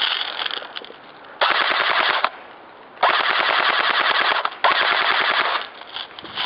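Airsoft rifle firing full-auto in three rapid bursts, the second the longest, with short pauses between.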